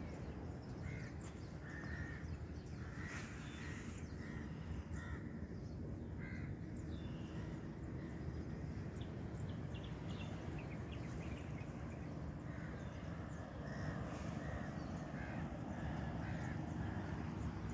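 Crows cawing, short calls repeated at intervals, over a steady low rumble.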